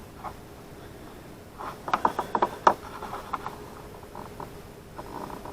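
Small sharp clicks and rattles of wire connections being handled and checked, in a flurry from about one and a half to three and a half seconds in, over a faint steady hum.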